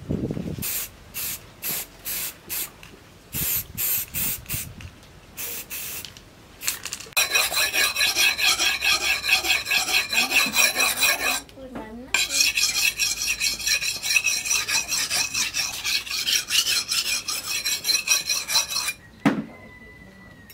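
A series of short hisses from an aerosol spray can. Then a steel cleaver blade is stroked rapidly back and forth on a whetstone, a gritty scraping with a high metallic ring. The strokes pause briefly about halfway through, and the sharpening ends with a single knock near the end.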